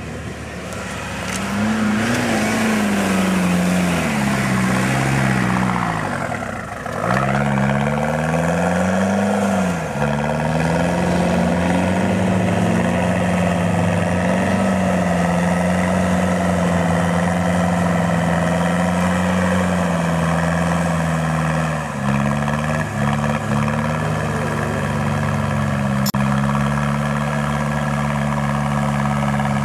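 Toyota 4Runner's engine revving hard, rising and falling in pitch several times, then held at steady high revs as the wheels spin and churn in soft sand, with a brief dip and pick-up about two-thirds through.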